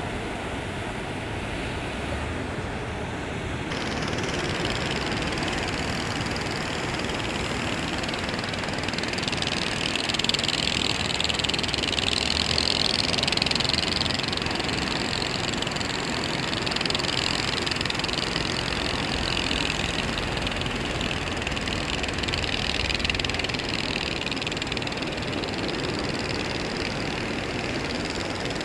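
Steady noise of fishing-boat engines running, blended with the hiss of surf breaking on the breakwater.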